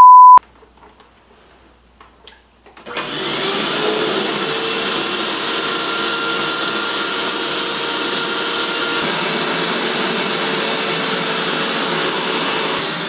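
A very loud test-tone beep over colour bars lasting under half a second, then a pause, and about three seconds in a vacuum cleaner starts and runs steadily with a faint motor whine.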